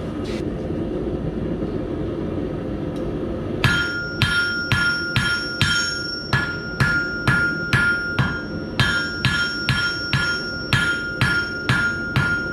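A steady rushing noise, then, about three and a half seconds in, a hammer starts striking red-hot steel rod on an anvil at about two blows a second. Each blow rings clearly as the smith draws out a nail's tapered point with overlapping blows.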